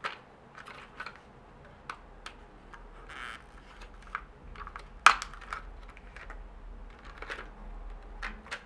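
Light clicks and taps of the hard plastic body of a Syma X5C quadcopter being handled, with one sharp snap about five seconds in. Near the end the quadcopter's battery is being drawn out of its compartment.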